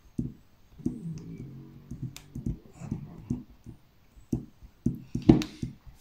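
Stainless-steel multi-placer tip of a diamond painting stylus tapping and clicking as it presses drills onto the canvas: a run of light taps, two or three a second, with one louder click a little after five seconds in.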